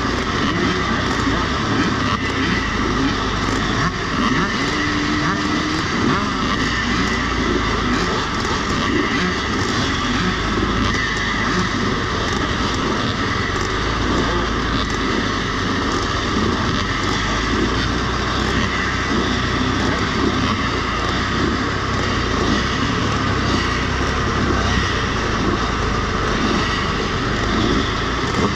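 A pack of vintage motocross motorcycles running together on the start line, a dense, steady din of many engines idling and being revved while they wait for the start of the race.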